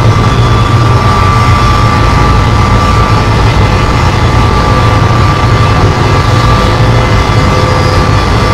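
Loud, unbroken contact-miked noise from an angle grinder cutting through a car tire, mixed with a calculator scraped against sandpaper. A heavy low hum and a steady high whine sit over a dense, harsh hiss.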